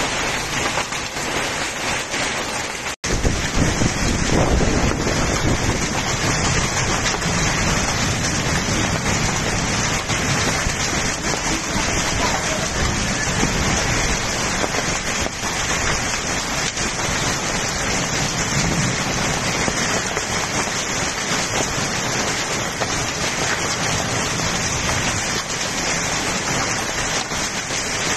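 Heavy rain mixed with hail pelting a wet street, a dense steady downpour. There is a momentary break about three seconds in, after which it is louder.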